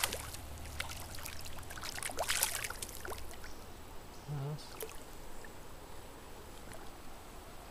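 Small hooked rainbow trout splashing at the surface of shallow, rocky stream water, with a flurry of splashes at the start and another about two seconds in, then the steady sound of running water.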